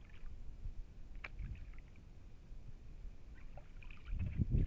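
Kayak paddle strokes on calm water: small drips and splashes off the blade, then a louder stroke near the end with low rumbling.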